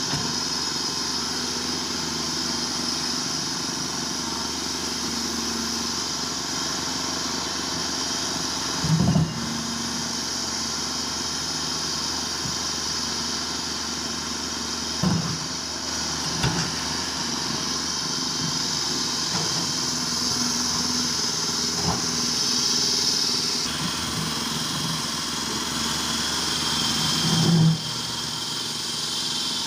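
Caterpillar 330 GC excavator's diesel engine running steadily, with a few short thumps, the loudest about nine seconds in and near the end.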